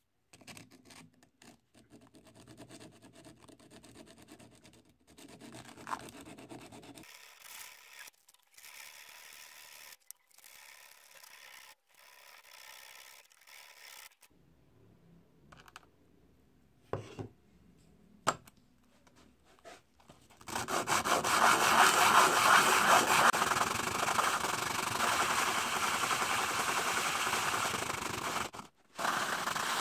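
The four-winged cutting knife of a meat grinder is rubbed on a wet sharpening stone, metal scraping on stone as the blade is sharpened. The scraping is faint and broken up at first, then turns loud and steady about twenty seconds in, with a short break near the end.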